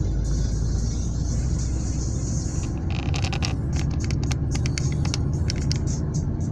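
Car driving on a bare new road surface, heard from inside the cabin: a steady low rumble of tyres and engine. From about three seconds in, a run of sharp ticks and clicks sounds over it.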